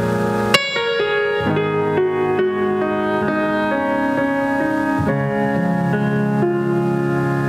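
Piano music played back over Fyne Audio F300-series loudspeakers. A sharp note is struck about half a second in, then a run of ringing notes that overlap one another.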